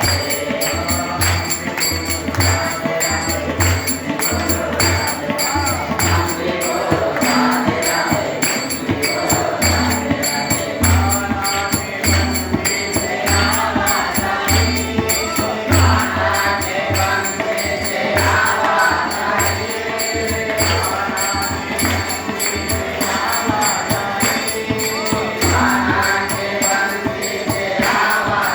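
Devotional bhajan music: singing over a steady beat of low drum strokes and jingling tambourine-like percussion.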